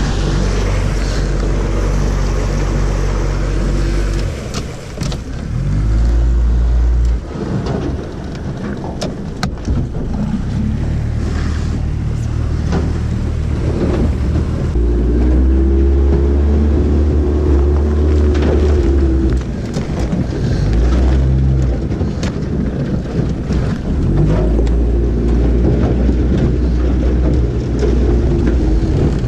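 Pontoon boat's outboard motor running under way, its pitch shifting several times with the throttle, with sharp cracks and knocks of thin ice breaking against the aluminium pontoons.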